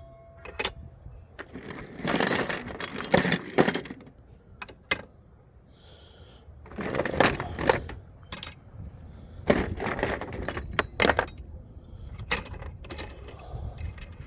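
Small pieces of oily scrap copper clinking and jingling as they are dropped by hand into a container, in four bursts of rattling with short pauses between.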